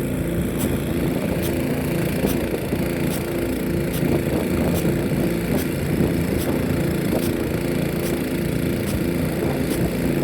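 Nelson P150 big gun sprinkler running, its drive arm clacking at an even pace, a bit more than once a second, as it steps the gun around. Under it runs a steady engine drone.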